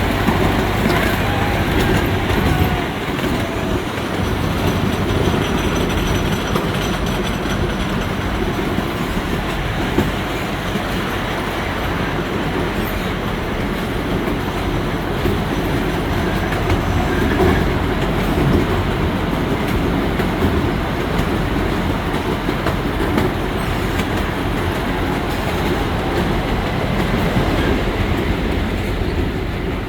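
Pioneer miniature park train running along its track, heard from the front car: a steady rumble of wheels and running gear on the rails.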